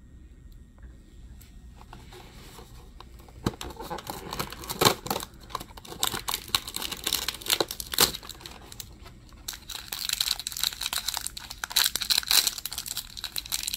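Foil blind-bag wrapper crinkling and tearing as it is pulled from a cardboard toy box and torn open by hand, starting about three and a half seconds in, with sharp crackles and snaps among the rustling.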